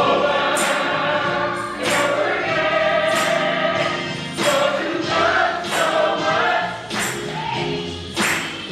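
A choir singing gospel music, held sung notes over a steady beat of sharp percussive hits.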